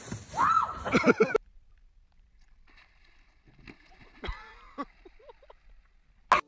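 Wind buffeting the microphone and a voice crying out, cut off abruptly about a second and a half in. Then a quiet stretch with a soft thump and splash as a stand-up paddleboarder falls into the water, and a sharp click near the end.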